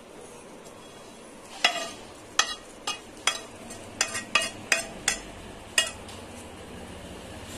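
Metal clinking and tapping against a stainless steel frying pan, about a dozen sharp, separate knocks over roughly four seconds, starting about a second and a half in, over a faint steady hiss.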